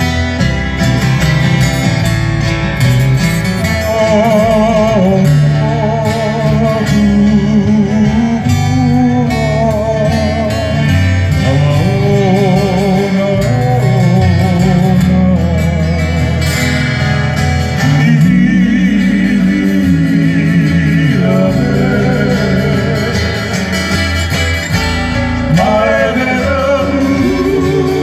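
Live Hawaiian music: male voices singing with vibrato over strummed acoustic guitar, twelve-string guitar and bass guitar, without a break.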